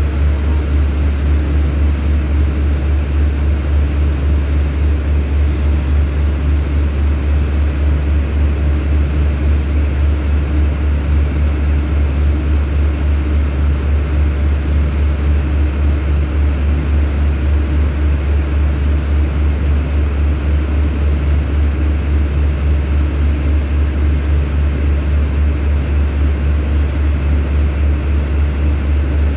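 Diesel engine of a standing passenger train idling: a steady low hum that pulses evenly.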